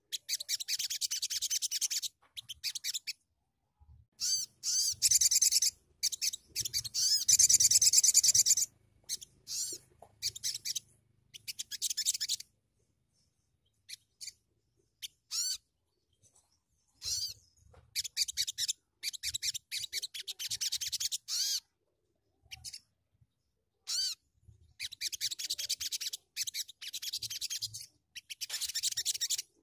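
Sogon (sogok ontong) songbird singing: repeated bursts of rapid, very high-pitched chattering trills separated by short pauses, loudest in a long phrase a few seconds in.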